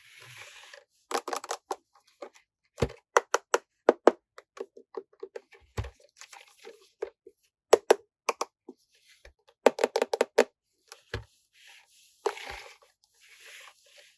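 Hands opening and handling plastic packaging and small plastic toy pieces: a string of irregular sharp clicks and taps, densest about two-thirds of the way through, with short crinkling rustles near the start and near the end.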